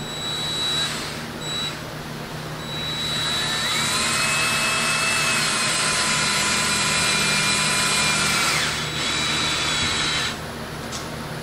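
Cordless drill working into PVC pipe. Two short bursts, then a long run in which the motor whine rises and holds steady for about five seconds before it stops.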